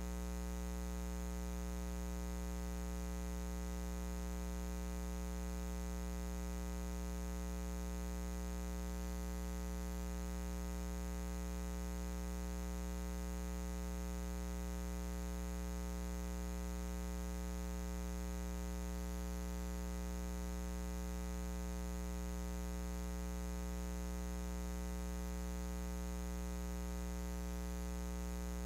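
Steady electrical mains hum with a long row of buzzing overtones over a faint hiss.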